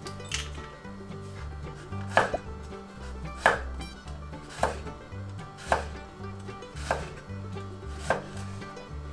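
Kitchen knife slicing a garlic clove on a wooden cutting board: six separate cuts, about one a second, each a sharp knock of the blade meeting the board.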